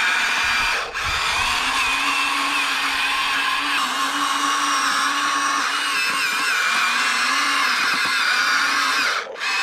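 Electric motors of a Huina 1593 RC excavator whining steadily, the pitch wavering as it works. The sound briefly drops out about a second in and again near the end.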